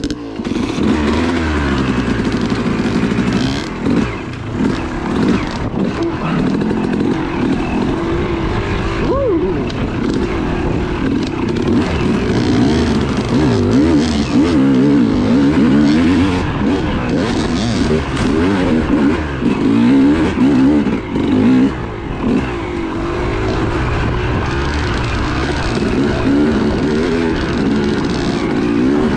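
Yamaha YZ250 two-stroke dirt bike engine being ridden, its revs rising and falling every second or two as the throttle is worked over a rough, rutted trail.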